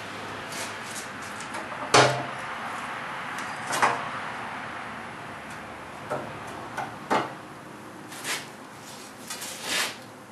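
Irregular metal clanks and knocks as steel pieces and long bar clamps are handled and set in place, the loudest about two seconds in.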